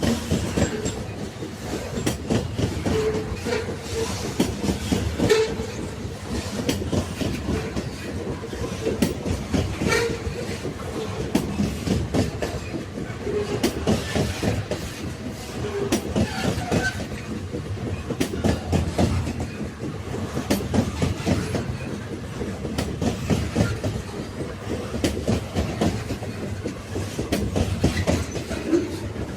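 Railway carriages running along the track: a steady low rumble with many rapid clicks of the wheels on the rails.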